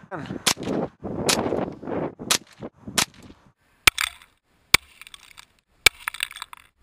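.22 rifle shots: about six sharp cracks, roughly a second apart, as a lithium polymer battery is hit and blown apart. A rushing noise fills the gaps between the first few shots.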